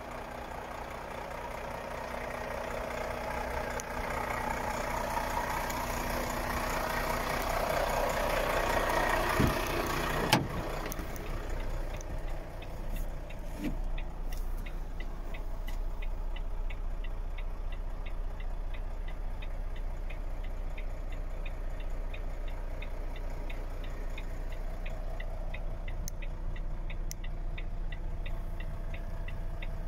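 Volvo FH 500 truck's 13-litre six-cylinder diesel idling steadily, first heard from outside and then from inside the cab. About ten seconds in there is a sharp knock, and after it a regular ticking about twice a second runs over the idle.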